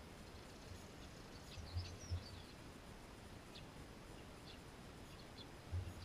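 Faint garden background with a few short, thin, high chirps scattered through it, and three low, muffled thumps: two close together about two seconds in and one near the end.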